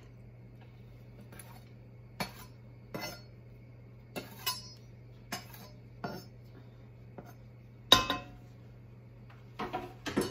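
Chef's knife scraping minced garlic off a plastic cutting board into an enamelled Dutch oven: a string of short clinks and scrapes of the blade on the board and the pot, the loudest about eight seconds in and a quick cluster near the end.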